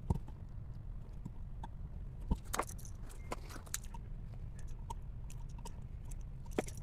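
Scattered light clicks, taps and metal clinks of small electrical parts and tools being handled during outlet wiring, with a firmer knock just after the start and another about two seconds in, over a steady low hum.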